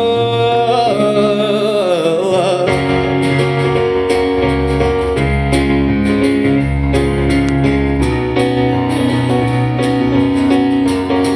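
Live country-pop band music. A male singer holds and bends the last word of the chorus for about two and a half seconds. Then comes an instrumental passage of digital piano and acoustic guitar over a low bass line with a steady beat.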